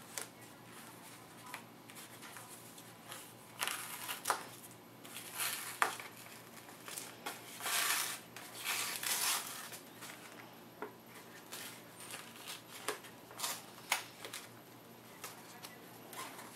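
Rustling and crinkling of a takeout food container and a paper napkin being handled, in irregular bursts with scattered small clicks and knocks.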